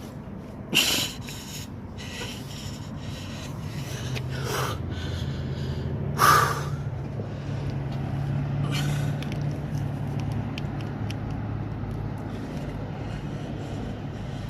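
A man's heavy, strained breaths and snorting exhales as he forces a tire plug insertion tool into the tire, over a steady low motor hum that swells about four seconds in.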